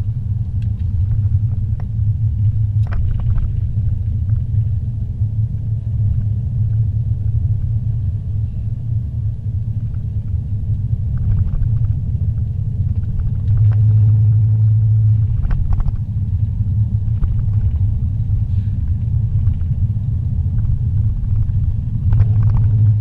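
Steady low rumble of a car driving on a paved road, heard inside the cabin: engine and tyre drone with a few faint clicks. It grows louder for a couple of seconds partway through.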